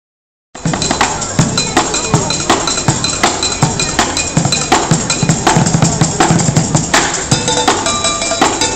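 Busker drumming with sticks on a kit of plastic buckets, a snare drum and a small metal pot, starting about half a second in. Fast, steady rhythm of hollow bucket thuds and snare cracks, with bright ringing metal hits over them.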